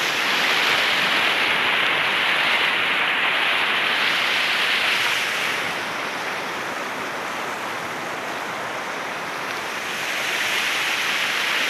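Floodwater rushing across a road and spilling off its edge, a steady noise of flowing water. It drops a little for a few seconds in the middle, then rises again near the end.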